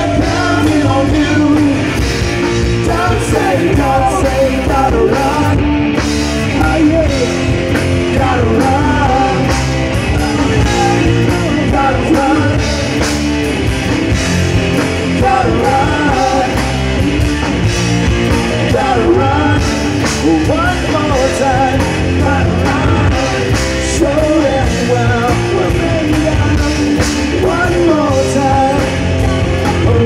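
Live rock band playing: a lead singer over electric guitar and drums, with a second voice at another microphone.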